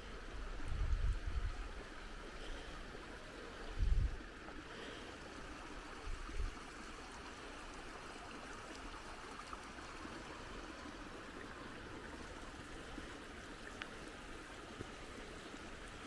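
Steady rush of running water from a creek. Wind buffets the microphone in a few low gusts during the first several seconds.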